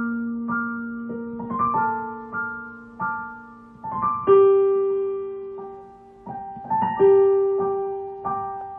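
Solo piano playing a slow, gentle melody: single notes struck one at a time and left to ring and fade over sustained bass notes, with fresh chords struck about four seconds in and again about seven seconds in.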